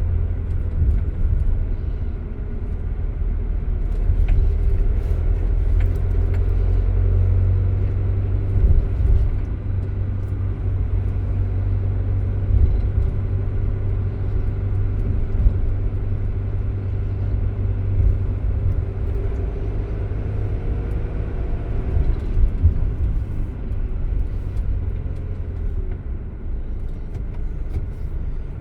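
A Citroën Jumper van on the move: a steady low rumble of engine and road noise, with a faint engine note that slowly rises and falls.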